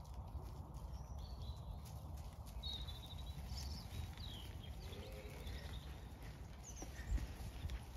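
Soft footfalls on grass from trotting Zwartbles sheep and a person walking, over a low rumble, with one heavier thump about seven seconds in. A few short bird chirps sound from about three seconds in.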